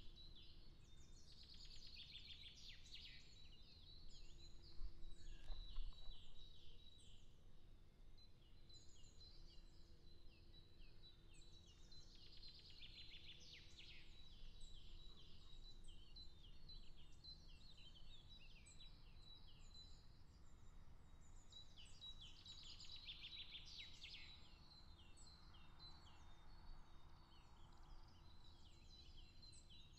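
Faint songbirds singing in the surrounding trees, the song coming in dense bursts of quick high chirps roughly every ten seconds, over a low outdoor rumble.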